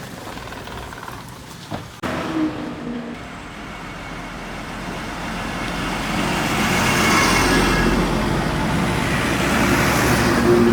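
A motor vehicle running on a road, its engine and tyre noise growing steadily louder through the second half.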